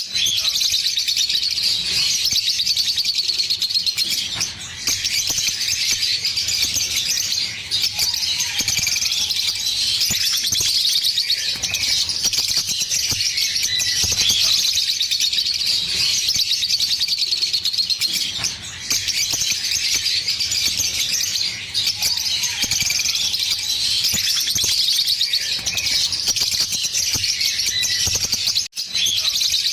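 A pair of green Fischer's lovebirds singing in long unbroken runs of rapid, high chirping chatter (the drawn-out 'giggle' song), pausing only briefly a few times.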